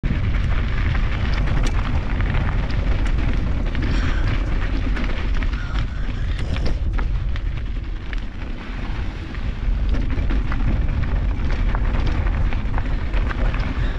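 Wind buffeting the microphone of a handlebar-mounted GoPro on a mountain bike riding downhill, a steady heavy rumble with many sharp ticks and rattles from the bike on the trail.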